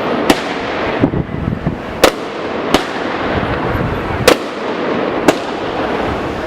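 Consumer fireworks going off in the street: about six sharp bangs at irregular intervals, a second or so apart, over a steady background of crackle and crowd noise.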